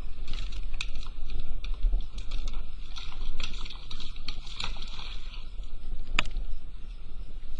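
Water lapping and slapping against a small boat's hull, with wind rumbling on the microphone, scattered small clicks, and one sharp knock about six seconds in.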